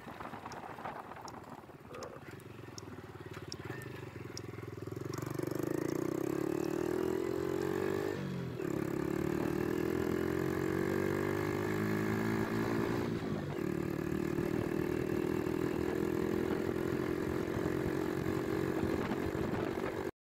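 Motorcycle engine, quiet at first, then pulling away about five seconds in. Its pitch climbs, drops briefly at two upshifts, climbs again, and it settles to a steady cruise.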